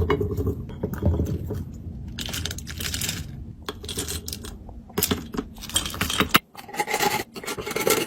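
Groceries and packaged frozen treats being handled while stocking a freezer and fridge: scattered light clicks and clinks, with a stretch of rustling about two seconds in. A low hum underneath cuts off about six seconds in.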